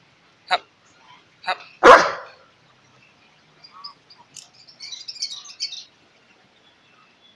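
Alaskan Malamute barking three short times close by; the third bark is the loudest.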